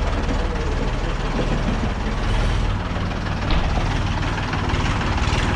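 Ford 3600 tractor's three-cylinder diesel engine running steadily.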